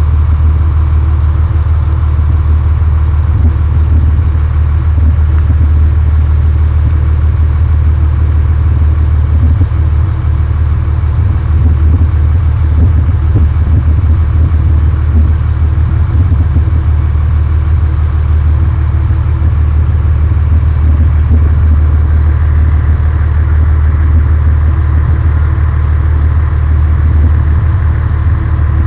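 Boat engine running steadily: a loud, low, unbroken drone.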